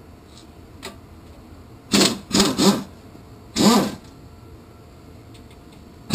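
Handheld corded electric power tool, such as a drill, run in short trigger bursts, its motor whining up and down in pitch. There are three quick bursts about two seconds in and another near four seconds.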